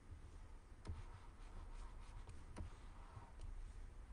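Faint scratching of a pen stylus on a graphics tablet as a sketch is drawn, with a few light taps.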